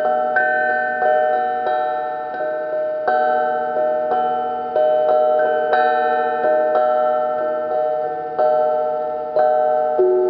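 Hamon, a struck iron folk instrument, played note by note in a slow, wandering melody. Each bell-like note rings on and fades as the next is struck, about one note every three-quarters of a second.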